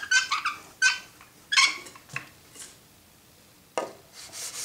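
Several short squeaks from a rubber laminate roller rolled over a sheet of 3M micron-graded abrasive film in the first two seconds, then a sharp knock as the sharpening jig is set down about a second before the end. Near the end a steady rubbing hiss begins as the Jet jointer knife in its jig is pushed across the wet film, sharpening the edge.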